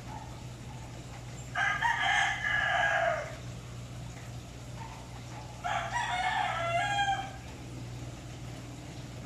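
Two long crowing calls from a bird, each about a second and a half and falling in pitch at the end, over a steady low hum.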